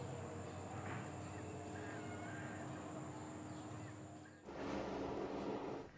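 Quiet outdoor ambience: a steady background hiss with a few faint bird calls. About four and a half seconds in it cuts off abruptly, giving way to a louder rushing noise that lasts about a second and a half.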